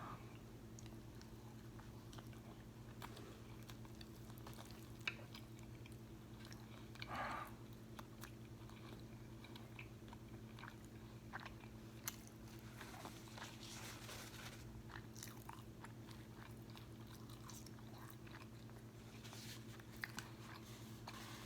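A person chewing and crunching crispy fried food, quiet mouth sounds with scattered crackles and clicks, over a faint steady hum.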